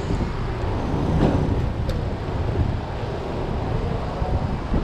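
Traffic noise on a wet street, heard from a moving ride: a steady low rumble with wind fluttering on the microphone.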